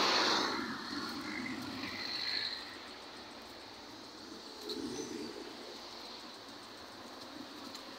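Quiet street ambience: a passing vehicle fades away at the start, leaving distant traffic, with faint bird chirps from the roadside trees.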